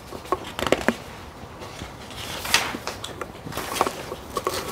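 A sheet of paper handled at a wooden lectern: a few light knocks and clicks, with a paper rustle about two and a half seconds in.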